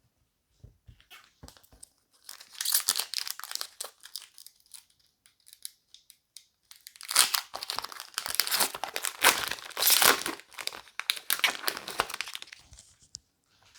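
Foil trading-card booster pack wrapper crinkling and being torn open, in two spells of rustling, the second longer.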